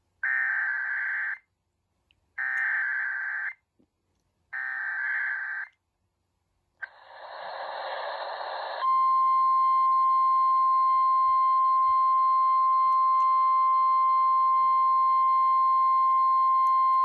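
Emergency Alert System SAME header: three bursts of warbling data tones, each about a second long with gaps of about a second between them. After a brief rising hiss comes the steady 1050 Hz NOAA Weather Radio alert tone, about nine seconds long, announcing a new severe thunderstorm warning.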